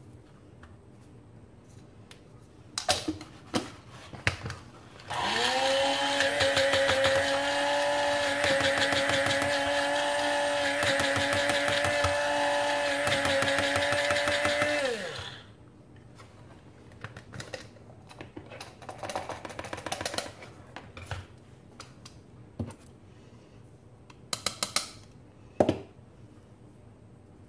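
Electric blade coffee grinder grinding dried moringa leaves to powder. It spins up quickly, runs at a steady whine for about ten seconds, then winds down and stops. A few sharp clicks of handling come before it, and light clicks and rattles after.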